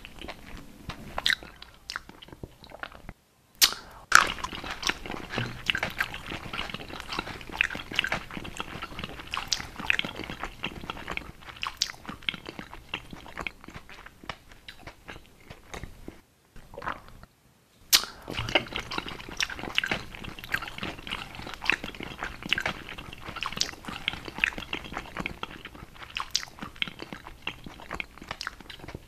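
Close-miked chewing and crunching, dense with wet crackly mouth clicks. The sound cuts out briefly twice, about three seconds in and around seventeen seconds, and each time a sharp loud bite starts the chewing again.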